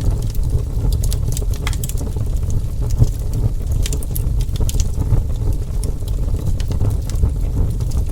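Wood fire burning with a steady low roar and scattered sharp crackles and pops from the burning wood, one louder pop about three seconds in.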